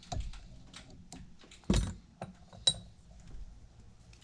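Small clicks and clinks of a wire whip-finish tool being worked around a fly in a tying vise while the thread is whip-finished. A dull thump a little under two seconds in and a sharp metallic click with a brief ring about a second later are the loudest.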